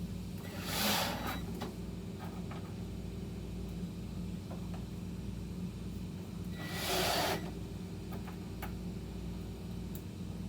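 Two brief rubbing hisses, about six seconds apart, over a steady low hum.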